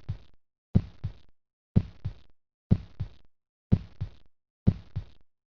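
Heartbeat sound effect: paired low thuds, lub-dub, repeating about once a second.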